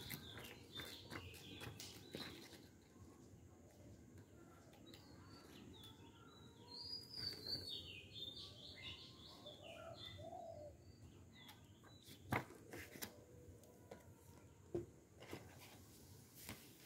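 Faint bird chirps and twittering calls, mostly in the middle, over quiet room tone, with a few soft clicks.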